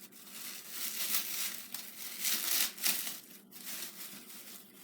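Packaging wrap crinkling and rustling as a wrapped costume piece is unwrapped by hand, coming in uneven swells.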